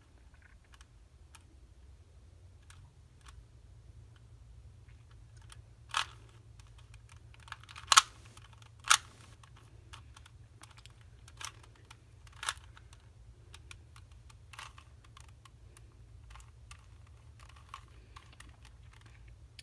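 Plastic Rubik's Cube layers being twisted by hand: irregular clicks and clacks, a few of them louder.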